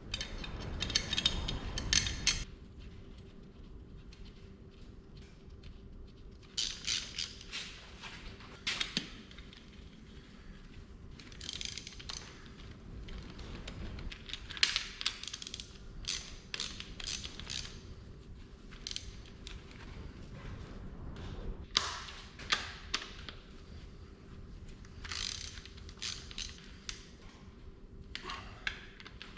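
Hand ratchet wrench clicking in short bursts, again and again, as bolts are run down, with pauses between the bursts.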